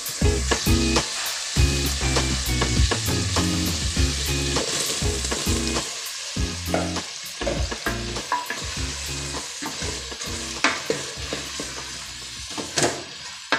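Tomato masala sizzling and frying in a metal pot, with a wooden spatula scraping and knocking against the pot as potato slices are stirred in. The sizzle is a steady hiss, broken by frequent short knocks.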